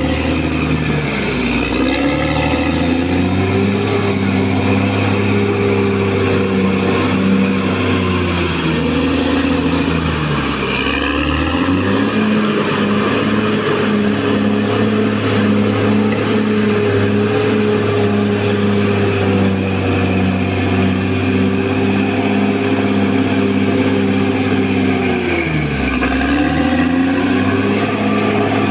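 Caterpillar D6R XL bulldozer's diesel engine running under work, loud and steady. Its pitch sags and picks back up three times: about a second in, around ten seconds in, and near the end.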